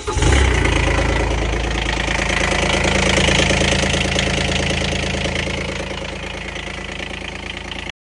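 Kubota SCL1000's diesel engine catching right at the start and running steadily, now that a new fuel shutoff solenoid has cured its crank-no-start fault. The sound cuts off abruptly just before the end.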